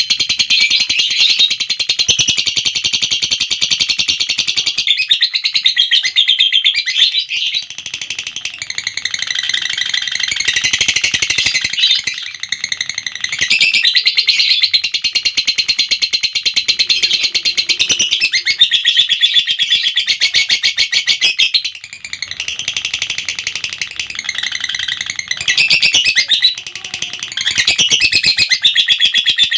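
Lovebird 'ngekek': a long, unbroken run of rapid, high-pitched chattering chirps. It dips briefly in loudness a few times, most clearly a little past two thirds of the way through.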